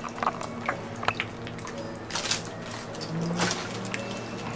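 Water seeping from the rock dripping into a plastic basin: a few sharp drops in the first second or so. Two brief rustling noises come about two and three and a half seconds in.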